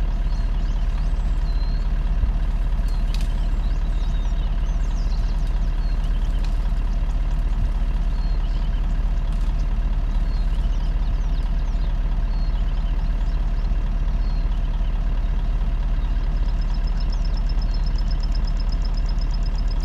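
Vehicle engine idling steadily at a low, even pitch. A few short high chirps come over it, and a fast high-pitched trill starts near the end.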